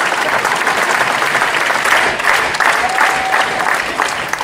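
Large indoor audience applauding steadily, with a short steady tone a little under three seconds in.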